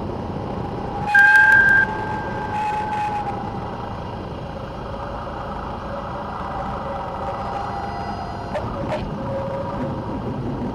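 Cessna 172 touching down and rolling out after a power-off landing: steady cockpit noise of the engine at idle and rushing air. About a second in, a loud high squeal lasts under a second, then fades away over the next two seconds.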